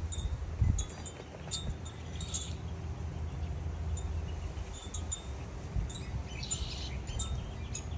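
Wind chimes ringing, with scattered short high notes that repeat at the same few pitches, over a steady low rumble.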